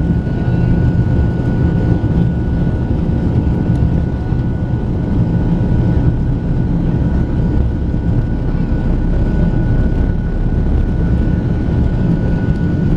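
Jet airliner heard from inside the cabin while it moves on the ground: a steady low rumble of engines and rolling wheels, with a thin steady whine above it.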